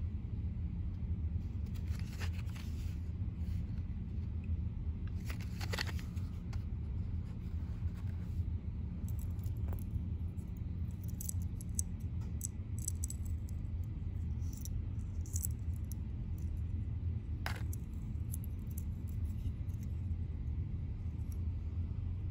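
Handling noise from a hard plastic crankbait with treble hooks and its plastic package: scattered light clicks and rustles over a steady low hum. There is a cluster of small ticks in the middle and a sharper click near the end.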